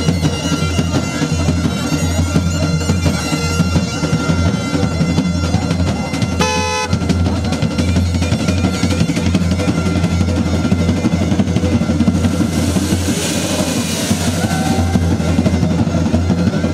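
Loud music with a drum beat and a heavy, steady bass. The bass drops out briefly about six and a half seconds in.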